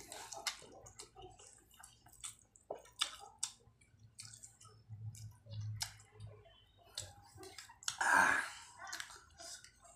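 Wet slurping and chewing of a mouthful of instant noodles in broth, with many short smacking clicks of the mouth and a louder slurp about eight seconds in.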